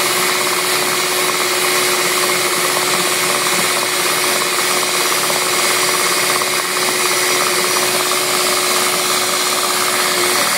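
Mondial Prática 400 W stand mixer running at a steady speed, its twin beaters whisking donut batter as flour is worked in: an even motor hum with one constant whine.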